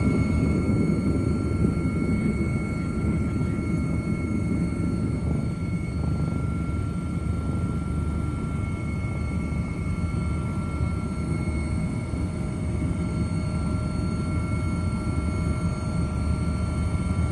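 Helicopter noise heard from on board: a steady low rotor and engine rumble with a thin, constant high turbine whine over it.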